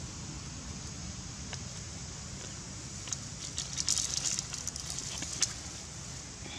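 Dry fallen leaves and twigs crackling, a run of sharp crackles that starts about three seconds in and fades about two seconds later, over a steady low background rumble.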